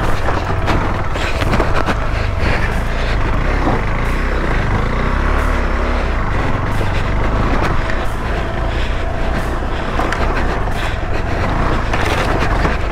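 KTM 390 Adventure's single-cylinder engine running as the bike is ridden over a rough dirt track, with frequent short knocks throughout. The engine note rises and falls about four to six seconds in.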